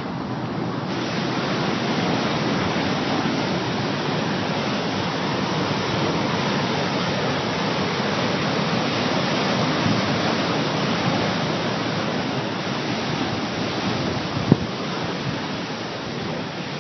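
Surf breaking and churning in a narrow rocky sea inlet: a steady rush of foaming water. A single sharp click near the end.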